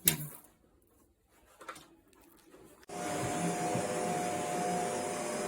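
A sharp knock, then a softer one, then about three seconds in the Shark NZ801UKT upright vacuum cleaner's motor switches on suddenly and runs steadily, a rushing hum with a held tone.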